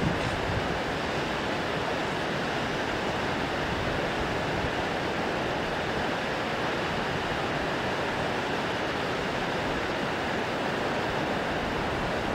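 Steady rushing roar of Shōmyō Falls, Japan's tallest waterfall, a dense even wash of falling water with no breaks.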